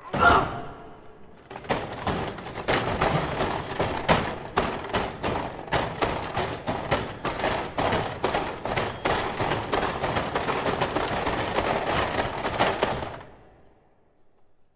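A loud knock, then a dense, rapid clatter of hard hits and rattles on a table football (foosball) table, like rapid gunfire, lasting about eleven seconds before fading out.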